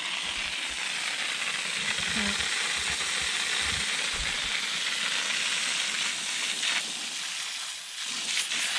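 Pressurised water hissing and spraying out of a leak in a vineyard irrigation line, around a small sprinkler pushed into a hole that is too big for it to seal.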